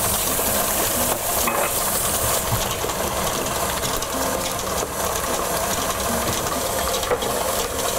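KitchenAid stand mixer running steadily, its wire whisk beating a thick, creamy crab dip mixture in the steel bowl.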